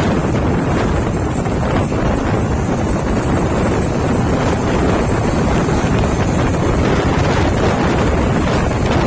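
A truck running on the road: a steady engine and road rumble with wind buffeting the microphone. A thin high whine sits over it for the first five seconds or so.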